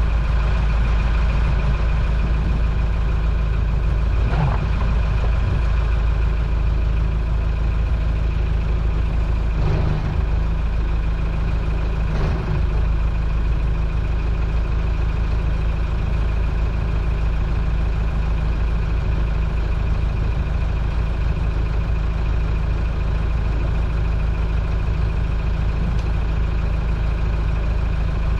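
A towboat's engine running steadily at low speed as a constant low drone, pulling a 45 ft Sea Ray yacht on a tow line.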